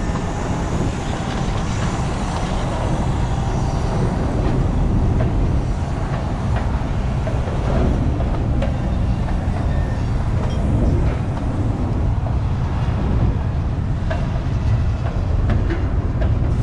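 Freight train of covered hopper cars rolling past: a steady low rumble of steel wheels on the rails, with a few faint clicks.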